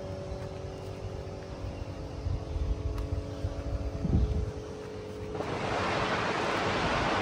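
Wind rumbling unevenly on the microphone, with a faint steady hum; about five seconds in, a steady hiss sets in abruptly and stays.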